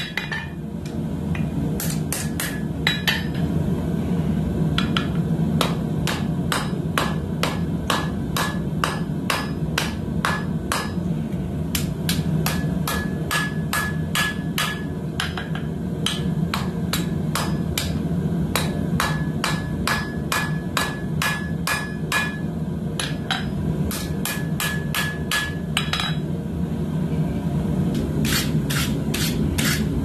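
Hand hammer striking hot coil-spring steel on an anvil while forging a knife blade: steady blows about two or three a second, many leaving a short ring, with a brief pause near the end. A steady low rumble runs beneath.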